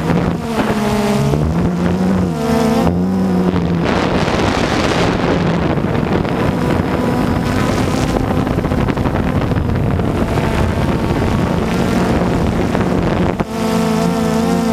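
DJI Phantom 2 quadcopter's motors and propellers buzzing close to the microphone, the pitch shifting up and down as the drone manoeuvres. From about four seconds in, wind rushing over the microphone mostly covers the buzz, which comes back clearly near the end.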